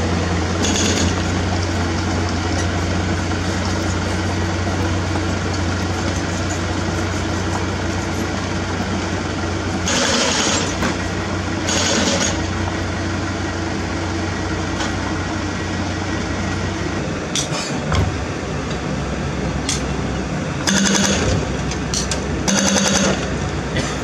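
Komatsu D31P crawler dozer's diesel engine running steadily with a deep hum while it pushes dirt. A hydraulic breaker hammers in short bursts, twice near the middle and twice near the end.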